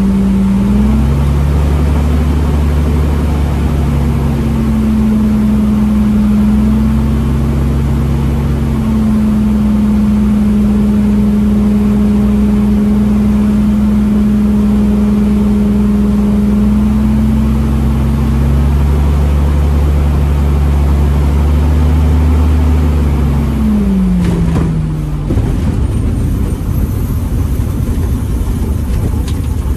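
Bearhawk bushplane's piston engine and propeller heard inside the cockpit, running steadily with small shifts in pitch as the power is adjusted. About 25 seconds in the engine note falls away as power comes off, leaving a rougher, noisier sound.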